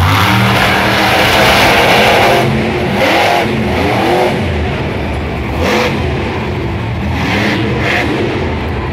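Monster truck's supercharged V8 revving hard, its pitch rising and falling in repeated surges as the truck drives and turns on dirt.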